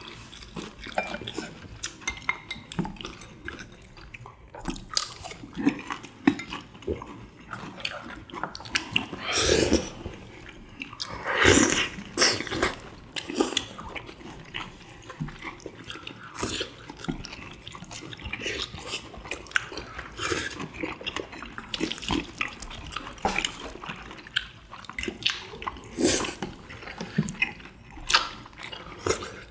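Close-miked eating: chewing and wet smacking and slurping of tteokbokki rice cakes in sauce, with a few louder slurps about ten and twelve seconds in and scattered clicks of chopsticks on dishes.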